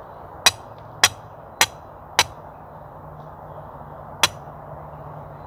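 Hammer striking the top of a steel rebar pin, driving it into the ground as a vertical reinforcement pin: four quick blows about half a second apart, then one more about two seconds later.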